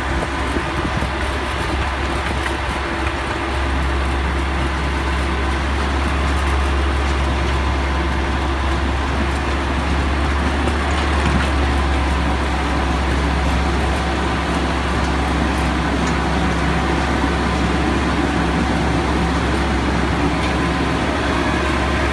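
Miniature train's engine running with a steady low drone as the train rolls slowly along the track, the drone growing slightly stronger a few seconds in.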